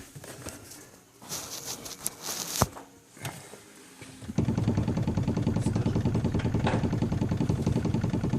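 A few scattered knocks and clicks, then a little over four seconds in a car engine starts abruptly and runs at a steady idle.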